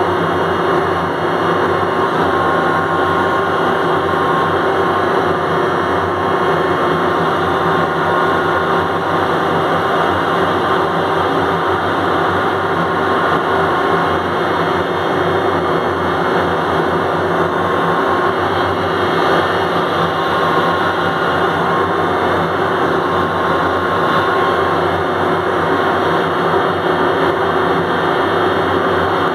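Ship's deck crane motor and machinery running steadily: a loud, even mechanical drone with several constant high tones over it.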